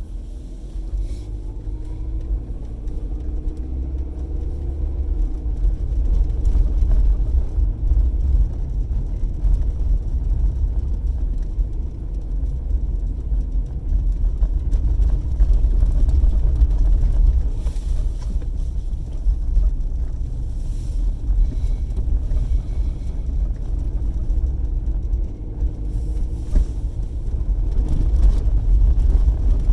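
Car cabin noise while driving: a steady, heavy low rumble of road and engine. A pitched engine note rises over the first few seconds as the car gathers speed, then fades into the rumble.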